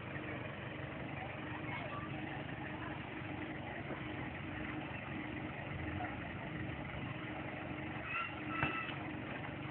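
Miniature railway diesel locomotive's engine running steadily as it draws into the station, a low hum that pulses gently and evenly.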